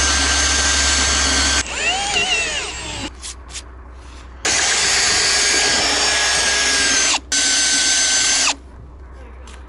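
Milwaukee M18 cordless drill boring into a timber with a large auger bit, running in bursts that stop and start as the bit struggles. The bit is cutting poorly, which the driller puts down to not having sharpened it enough.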